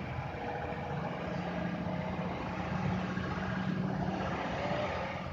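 Diesel engine of a heavy truck running with a steady low drone as it moves slowly around a bend, mixed with motor scooters passing close by.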